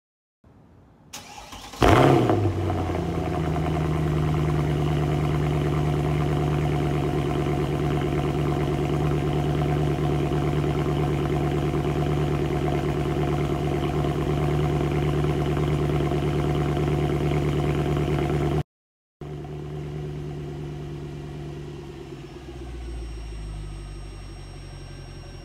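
Mercedes-Benz C63 AMG's 6.2-litre M156 V8 starting up: a short crank, then a loud rev flare about two seconds in that settles into a steady idle through the quad exhausts. The sound cuts out briefly near the end and comes back quieter.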